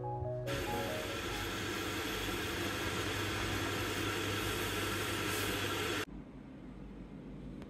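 Water at a rolling boil in a steel saucepan on an induction hob: a steady, loud bubbling hiss with a low hum beneath. It starts about half a second in and cuts off suddenly about six seconds in.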